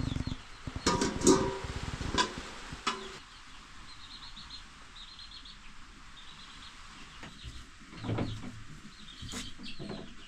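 Steel plates and bowls clinking as they are set down on a floor, then a bird chirping in short quick runs of high notes.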